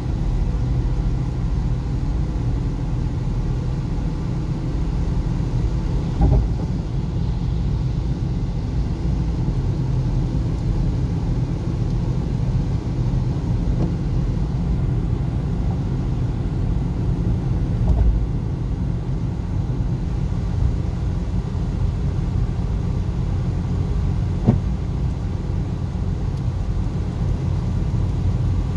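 Steady low rumble of a car driving on a wet road, heard inside the cabin, with three brief thumps spread through it.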